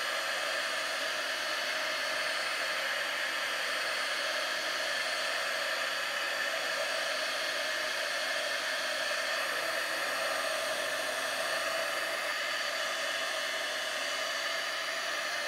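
Handheld heat gun running steadily, a constant blowing noise with no change in speed.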